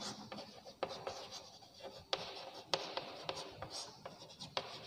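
Chalk writing on a blackboard: faint scratching strokes broken by several sharp taps of the chalk against the board.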